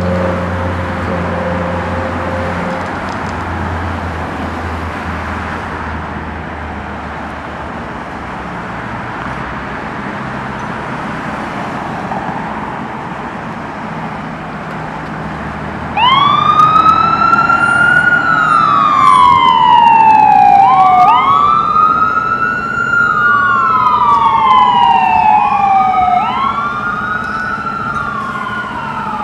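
Street traffic and an engine running for about the first half. Then a fire engine's siren starts up loudly in wail mode, each cycle rising quickly and falling slowly, repeating every few seconds with the cycles overlapping, as the engine leaves the station on an emergency call.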